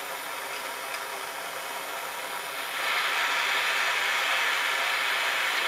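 Bernzomatic gas blowtorch burning with a steady hiss, heating a copper pipe joint for silver soldering. The hiss gets louder about three seconds in and then holds.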